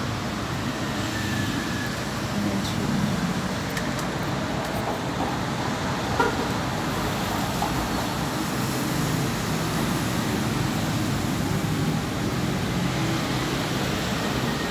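Steady low background rumble, with a single short click about six seconds in.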